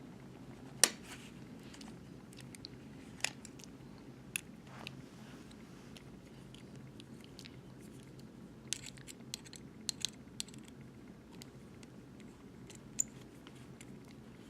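Sparse sharp clicks and light taps of an Allen key and small metal parts being handled while screws are backed out of a knife-sharpener vise base, with a cluster of clicks a little past the middle. A steady low hum runs underneath.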